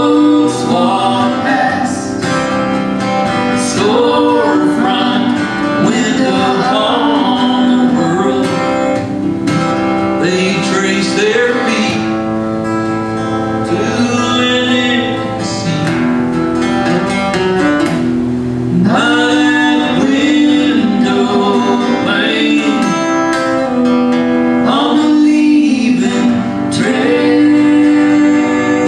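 Live acoustic folk song: a strummed acoustic guitar with a man and a woman singing together.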